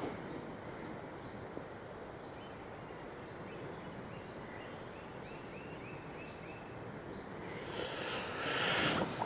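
Fast, swollen river rushing steadily, with a small bird giving a quick run of about seven short repeated notes partway through. Near the end a louder rush of hiss swells up for over a second.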